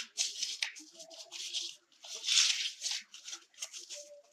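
A sheet of paper being rolled by hand into a tight tube, rustling and crinkling against the board in a string of bursts, the loudest a little over two seconds in.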